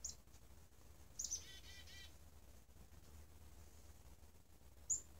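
Faint black-capped chickadee chick-a-dee call: a couple of high opening notes followed by a quick run of several lower, repeated 'dee' notes, with a single short high note at the start and another near the end.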